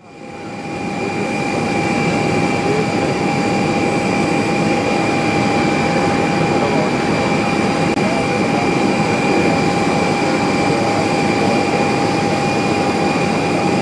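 Boeing 787-8 Dreamliner on final approach, its twin turbofan engines giving a steady rushing noise with a steady high whine over it. The sound fades in over the first second or two.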